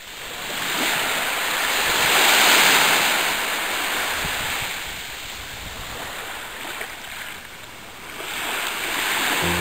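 Small sea waves breaking and washing up a coarse-sand beach, the rush swelling about two and a half seconds in, ebbing away, then another wave washing in near the end.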